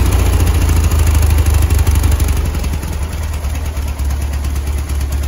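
A freshly built 2110cc air-cooled VW flat-four in a 1971 Beetle idling steadily, heard at the tailpipe of its homemade quiet-pack exhaust with a Magnaflow turbo-style muffler. It gives a low, even exhaust note and is quiet, with no valve chatter, as the new engine's solid lifters are still tight.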